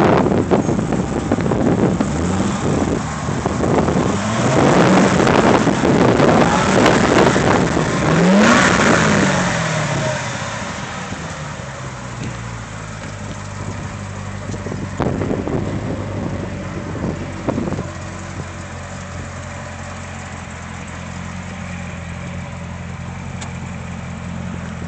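Chevrolet Corvette C6 ZR1's supercharged 6.2-litre LS9 V8 revved several times in quick up-and-down blips, then settling to a steady idle from about ten seconds in.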